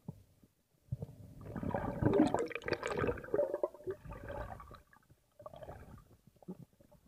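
Underwater bubbling and gurgling water noise, heard through a waterproof camera housing. It builds about a second in, is loudest in the middle and fades about halfway through, with a few smaller gurgles later.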